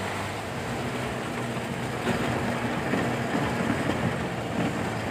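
Toyota LN106 Hilux pickup's diesel engine running steadily as the truck drives along, a low drone under road and tyre noise.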